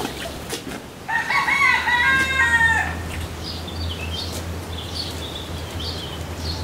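A rooster crows once, a long call of about two seconds, followed by a few short high chirps over a steady low hum.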